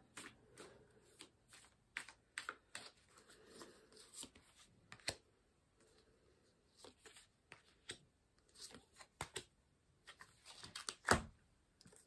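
A deck of oracle cards shuffled by hand: an irregular string of soft card flicks and taps, with one louder snap near the end.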